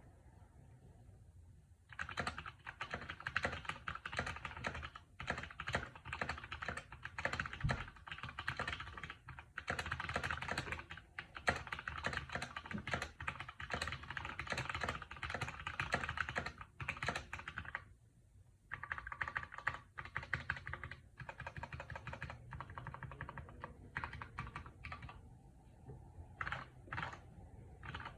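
Fast typing on a GK64 mechanical keyboard fitted with Gateron Ink Black linear switches, a dense run of keystrokes. It begins about two seconds in, pauses briefly around the middle, then thins to scattered single key presses near the end.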